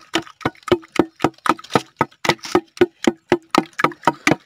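A wooden hand churner (mathu) pounding and mashing palmyra palm fruit (nungu) flesh in a metal pot. Its strokes give steady, wet knocks against the pot, about four a second.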